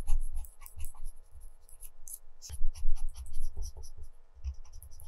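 Colored pencil scratching on textured watercolor paper in many short, quick, irregular strokes, with soft low thumps mixed in.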